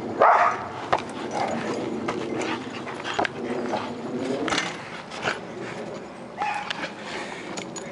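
Two dogs playing excitedly at a tetherball, whining and yipping, with a loud burst just after the start. Sharp short knocks and snaps are scattered among the whines as they leap at the swinging ball.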